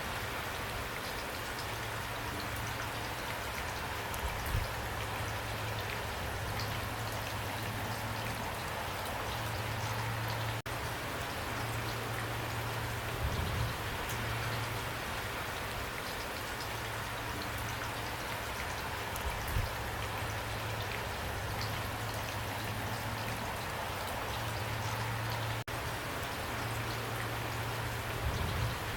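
Heavy rain pouring steadily, an even hiss of falling drops, with a few louder low thuds here and there.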